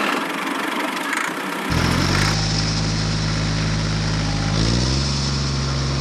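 An engine running steadily. It starts as a hiss and, about two seconds in, turns into an even, low engine hum that shifts in pitch at about four and a half seconds.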